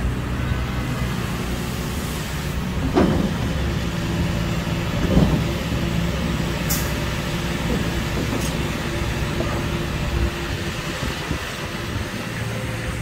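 Hitachi Zaxis 470R hydraulic excavator's diesel engine running steadily under load while the machine swings and digs rock. There are a couple of knocks about three and five seconds in.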